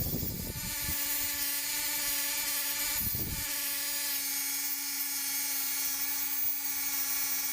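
Electric power tool running steadily with an even whine, with a few low thuds in the first second and again about three seconds in.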